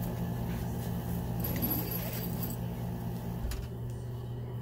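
Vacuum cleaner motor running with a steady low hum. A brief light metallic jingle comes about a second and a half in.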